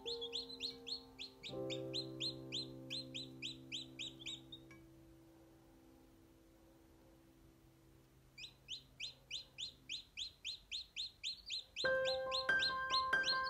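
Newly hatched chicks peeping: a rapid run of high peeps about four a second, breaking off after about five seconds and starting again past the middle. Under them runs background music with held low notes, and a fresh chord comes in near the end.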